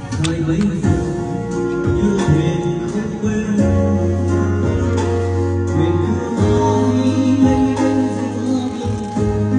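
Background music: held notes over a steady bass line.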